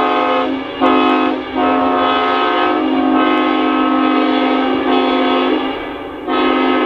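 Multi-chime locomotive air horn sounding a chord in blasts: two short ones, then one held about four seconds, and another starting near the end.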